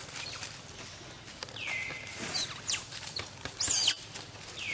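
High animal calls: a whistled call that slides down and levels off, repeated about every three seconds, and a sharper, louder high call near the end. Beneath them are light rustles and clicks in dry leaf litter.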